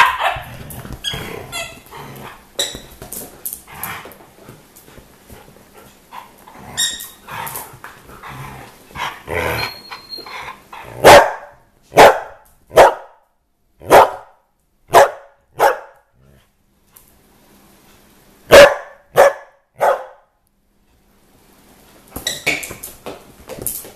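Dogs barking in short, sharp barks, about one a second: a run of six, then after a pause three more. Before them, play noise with a plush lion squeaky toy squeaking now and then.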